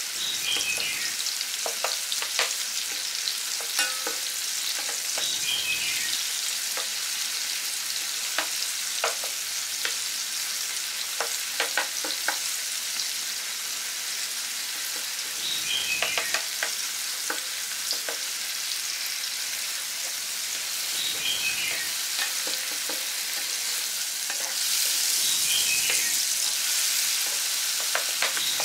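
Chopped tomatoes and peeled boiled quail eggs sizzling in hot oil in a nonstick frying pan, stirred with a wooden spatula that scrapes and taps the pan now and then. The sizzle grows louder near the end.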